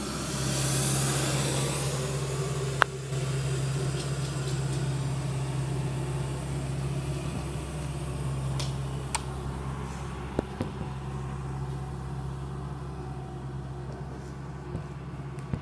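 Street sweeper's engine and brushes running steadily, heard through a house window, loudest about a second in and slowly fading as it drives off. A few sharp clicks cut through, the loudest about three seconds in.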